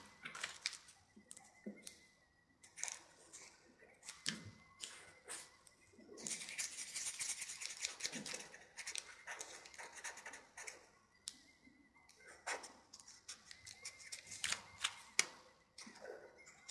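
Felt-tip marker drawing on folded origami paper: faint scratchy strokes and light paper taps and rustles, with a longer run of continuous scratching about six seconds in.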